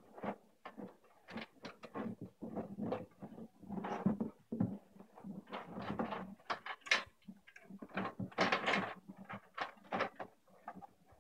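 Power supply cables being fed through the SilverStone PS11-W case toward the back panel: irregular rustling and scraping with light knocks of cables and connectors against the case.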